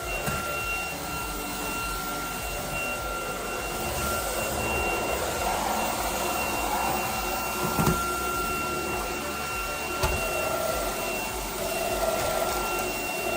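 Cordless stick vacuum running steadily with a high motor whine, sucking up scattered debris from a mat and floor, with a few sharp knocks along the way.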